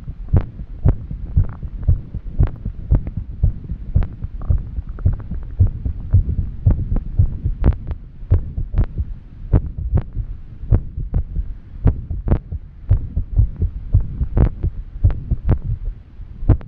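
A woman's heartbeat after exercise, fast and irregular, with uneven gaps between the beats: an arrhythmia.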